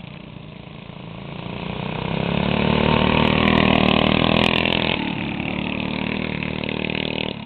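Small engine of a racing riding lawn mower passing close by: it grows louder to a peak about three to four seconds in, then fades as it moves away.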